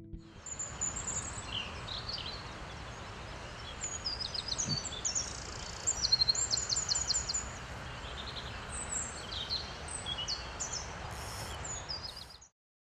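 Outdoor ambience of several songbirds chirping and singing in short trills over a steady background hiss; it cuts off suddenly near the end.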